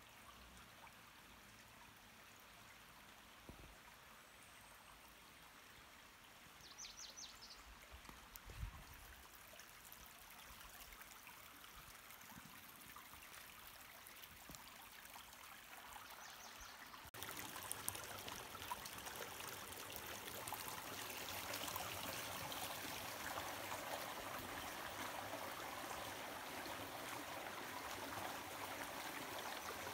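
Shallow creek water running and trickling over sand and rocks, a steady rush that turns abruptly louder a little past halfway. A brief high chirp and a soft thump come about a quarter of the way in.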